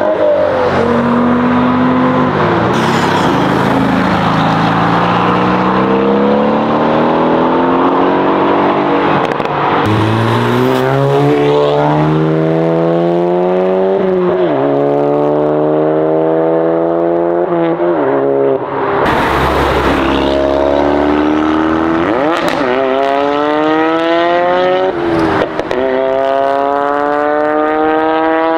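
Modified car engines revving and accelerating away one after another, their pitch climbing through the gears with drops at each shift. A loud, deep burst comes about two-thirds of the way in, and a few sharp cracks follow as the next car pulls away.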